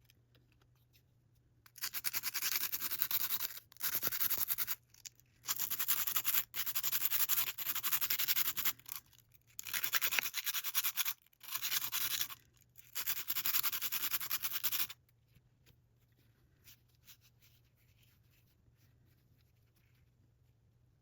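Hand scrubbing of a rusty metal tool with a brush or abrasive: several bursts of fast back-and-forth strokes with short pauses between them, stopping about 15 seconds in.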